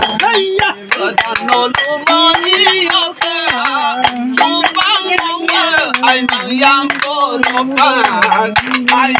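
A man singing an Oi Nitom, a Mising folk song, in long held, wavering phrases, with people clapping along in time.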